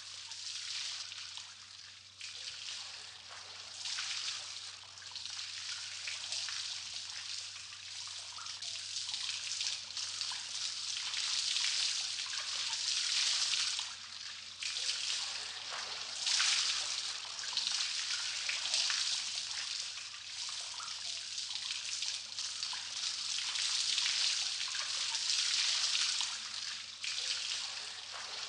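Water dripping and trickling without a break, swelling and easing in level.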